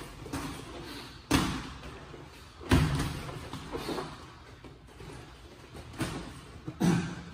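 Boxing gloves landing punches during sparring: a few sharp, irregularly spaced thuds, the loudest about three seconds in.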